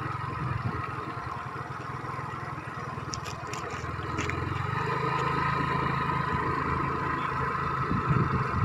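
Motorcycle engine running steadily at low road speed, its pitch shifting slightly about halfway through.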